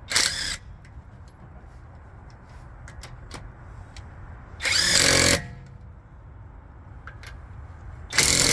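Alloyman cordless impact wrench hammering in short bursts as it breaks lug nuts loose: a brief burst at the start, one of about a second near the middle, and another starting near the end.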